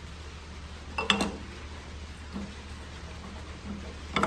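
Metal clinks and knocks as a Club Car Precedent golf cart rear axle shaft is pushed into its housing to line up its splines. There is a cluster of clinks about a second in, a couple of faint taps, and another sharp clink near the end, over a low steady hum.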